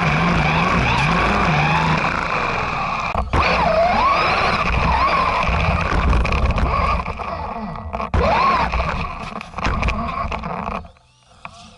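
RC 4x4 truck driving through snow, heard from a camera on its body: a steady whine from the motor and drivetrain that rises and falls in pitch as the throttle changes, over rumbling wheel and snow noise. The sound drops away suddenly near the end.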